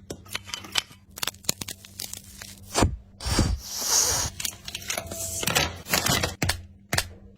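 Food-preparation handling sounds: packaging being torn and crinkled, with a longer rustling tear about halfway through, among many short sharp clicks and knocks.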